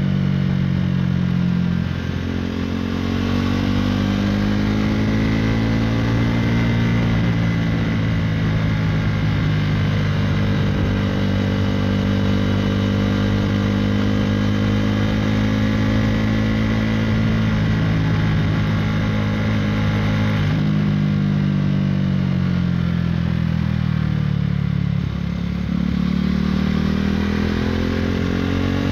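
KTM Duke 390 single-cylinder engine running through an Akrapovic Racing Line exhaust while riding. The exhaust note stays fairly level for long stretches and falls and rises with the throttle. It drops and climbs again near the end, with a short break in the sound about 25 seconds in.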